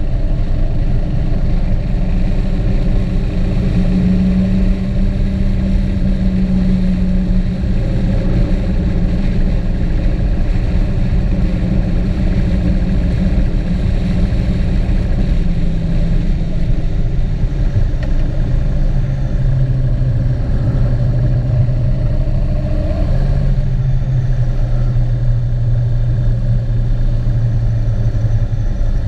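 A motor vehicle's engine running on the road over a steady loud rumble. The engine note sits higher in the first part, then drops lower about two-thirds of the way through and stays there.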